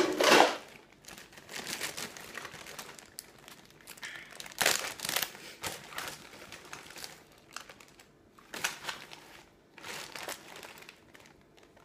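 Plastic packaging crinkling and rustling in irregular bursts as toys are handled and unwrapped, loudest right at the start and again about five seconds in.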